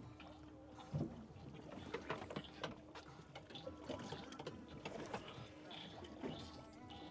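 Light clicks and knocks of fishing gear on a boat, the loudest about a second in, over a faint steady hum, with faint voices in the background.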